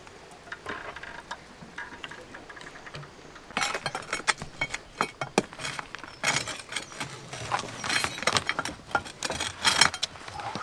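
Stone walling work: stones and metal mason's tools clinking and knocking against each other. A few light taps at first, then from about three and a half seconds in a rapid, irregular string of sharp clinks and knocks.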